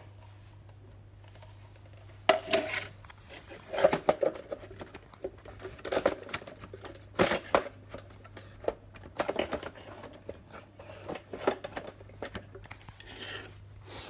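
Hard plastic being handled: irregular clicks, knocks and rustles from the robot vacuum's parts, over a steady low hum.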